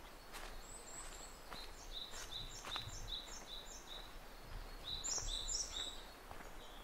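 Footsteps crunching along a forest trail at a walking pace, with a small songbird singing a quick run of six or seven repeated high notes, then a second, higher phrase about five seconds in.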